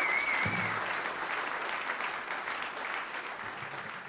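Audience applauding, slowly dying down, with a short wavering whistle in the first second.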